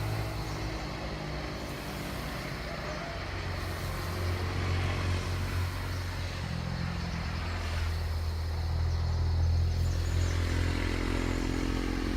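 A honeybee colony buzzing on its hive as the bees shimmer in a defensive wave against a nearby wasp. It is a steady low drone that swells a little partway through.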